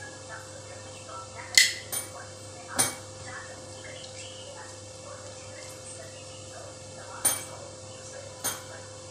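Hands mashing soaked tamarind in a pot of water, with about five sharp clinks of the metal pot and steel bowl. The loudest clink comes about one and a half seconds in, the others spread through the rest, over a steady hum.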